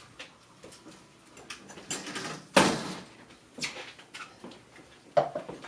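Front door and footsteps as people come into a house: scattered knocks and steps, with a louder thump about two and a half seconds in and another near the end.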